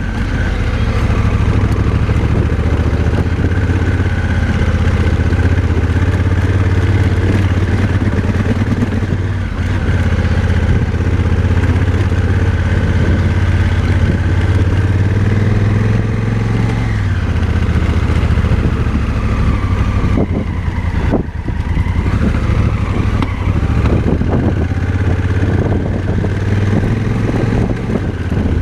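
Motorcycle engine running under way on a dirt road, steady at first with a change in engine pitch about two-thirds of the way through. Irregular knocks and clatter from the rough track follow in the last several seconds.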